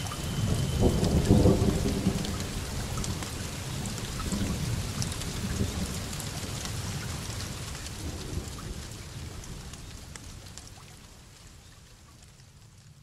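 A thunderstorm: a low roll of thunder about a second in, then a second, weaker rumble around four seconds, over steady rain. The rain fades out slowly.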